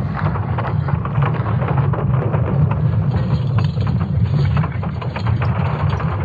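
Cassini spacecraft's recording from Saturn's moon Enceladus converted into sound: a dense, continuous crackling rumble with a deep low hum underneath. This is a plasma-wave sonification.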